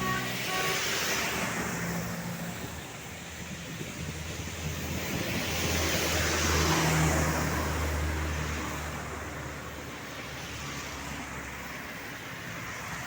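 Road vehicles passing close by, tyre and engine noise swelling and fading twice, the second pass loudest with a low engine drone about seven seconds in. The last notes of a multi-tone telolet bus horn tune sound at the very start.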